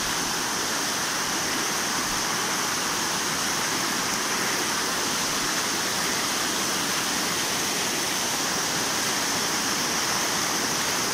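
Floodwater rushing steadily over a submerged road: a constant, unbroken wash of fast-flowing water.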